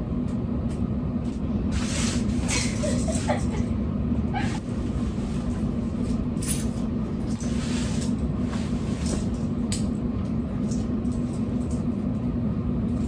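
Steady car cabin noise while driving: a low engine and road hum, with scattered small clicks and rattles.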